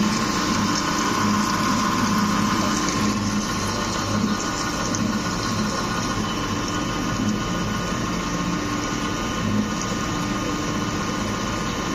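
Small-hole EDM drilling machine ("super drill") running while it drills a 0.5 mm hole. It makes a steady mechanical hum with its pump and water flow: a held tone in the middle range over an unevenly pulsing low throb.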